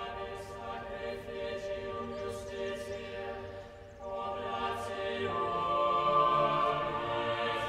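Background music of choir voices holding long, sustained notes, dipping briefly and then swelling louder about four seconds in.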